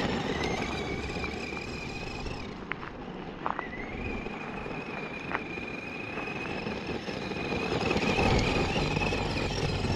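Vintage Tamiya 1/10 RC monster truck with an 18-turn Speedworks 350 brushed electric motor driving over gravel, its motor giving a steady high whine. The whine drops out about two seconds in and comes back about a second and a half later, with a few small clicks along the way.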